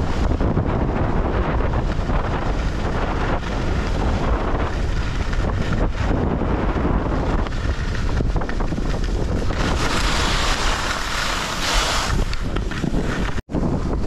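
Wind buffeting the microphone: a steady, heavy rushing that grows a brighter hiss a little over two-thirds of the way through. The sound cuts out for an instant near the end.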